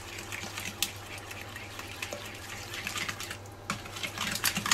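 Spoon stirring thick, sticky chocolate cake batter in a bowl: a run of wet, squelching scrapes and slaps, easing off briefly past three seconds in, then quickening near the end.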